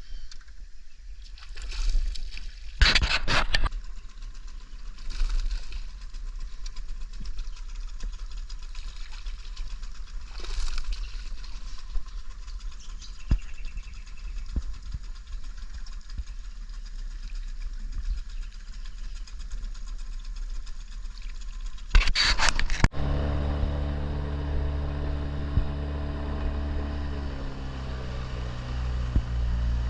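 A few knocks and scrapes, then a boat's outboard motor starts about two-thirds of the way through and runs steadily, its pitch shifting slightly.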